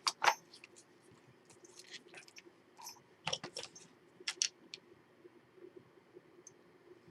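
Scattered small clicks and taps of craft tools and supplies being handled on a worktable, a few at a time with short gaps, over a faint steady hum.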